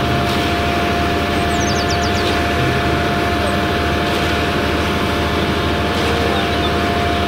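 Concrete mixer truck's diesel engine running steadily with a low rumble while its drum pours concrete down the chute, a steady high whine held over it throughout.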